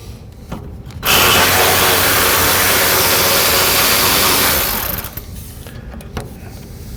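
A power tool runs steadily for about four seconds, starting about a second in. It makes a loud, even, hissing whir, used to remove fasteners from a headlight housing.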